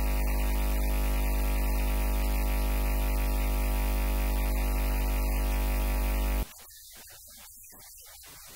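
Loud, steady electrical mains hum in the audio: a deep buzz with a long stack of overtones, the sign of an electrical fault in the recording chain. It cuts off abruptly about six and a half seconds in, leaving only faint hiss.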